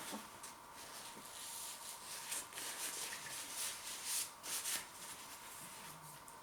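Faint, irregular rubbing and rustling noises, several soft scrapes in a row, strongest in the middle stretch, over a faint steady high hum.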